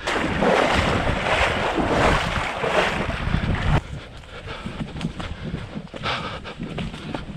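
Wind buffeting an action camera's microphone: a loud rushing hiss over a low rumble that drops away suddenly about four seconds in, leaving a quieter rumble.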